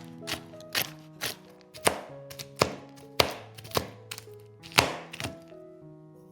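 Knife chopping roasted peanuts and hazelnuts on a cutting board: about nine sharp chops, roughly two a second, stopping about five seconds in.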